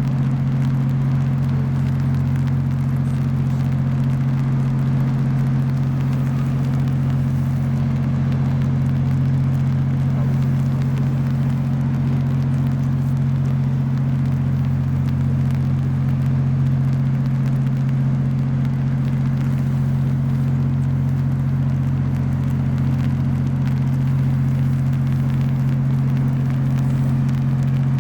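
Ship engines droning steadily at a low, constant pitch with a hum that does not change.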